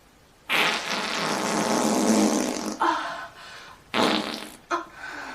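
A long, loud fart starting about half a second in and lasting roughly two seconds, followed by two shorter farts about a second apart.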